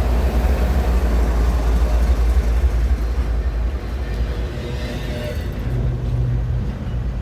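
Freight train rolling past: a steady low rumble of wheels and cars on the rails, easing off a little about four seconds in.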